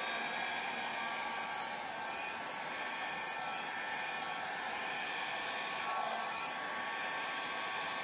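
A handheld 1000-watt hair dryer running steadily: an even rush of air with a faint whine.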